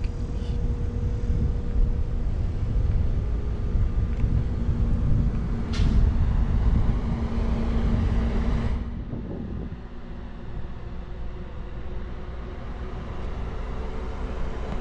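Steady hum and whir of a parked 60-foot all-electric articulated bus's onboard equipment, under rumbling wind noise on the microphone. There is a short sharp hiss about six seconds in, and the louder noise drops away after about nine seconds, leaving a fainter steady hum.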